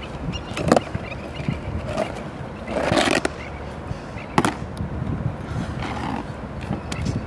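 Plastic laundry basket scraping and knocking on a concrete slope, with a few sharp knocks and a longer scrape about three seconds in, over a steady low rumble.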